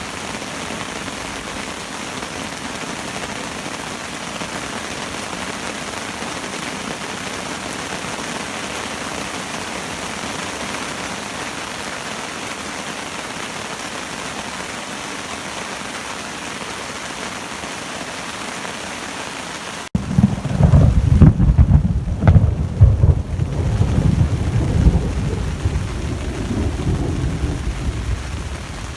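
Steady rain falling, then about two-thirds of the way through a thunderclap's long rolling rumble starts abruptly, loudest in its first few seconds and slowly fading, with the rain going on beneath it.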